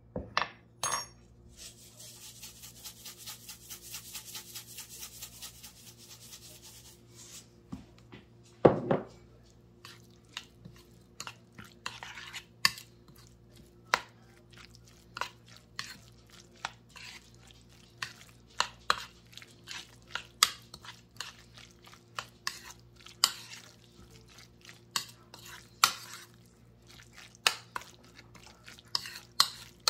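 Metal spoon stirring and mashing soft eggplant bharta in a bowl. A few seconds of rapid stirring strokes come first, then one louder knock, then irregular clinks and scrapes of the spoon against the bowl.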